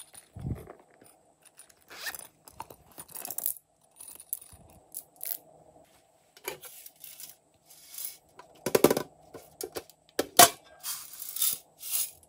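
Hard plastic containers being handled and set down on a wooden table: irregular clicks, scrapes and rattles, loudest around nine and ten seconds in.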